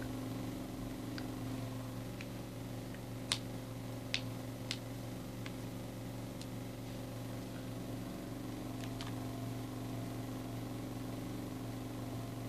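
Steady low machine hum made of several fixed tones, with a scattering of sharp clicks, the loudest about three seconds in and a few more over the following seconds.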